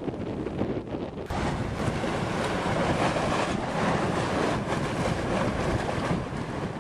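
Surf surging and washing into a sea cave on the coast, with wind on the microphone. The wash grows louder and fuller about a second in.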